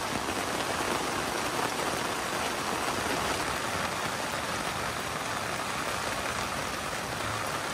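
Steady rain falling on a tent fly and the sodden ground outside, heard from inside the tent.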